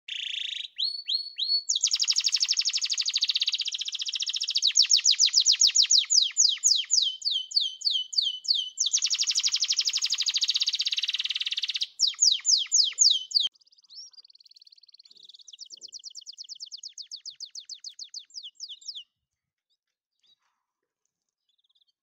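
A canary singing: long runs of rapid repeated notes and trills, some notes sweeping downward, the pace changing from run to run. The song stops about three seconds before the end.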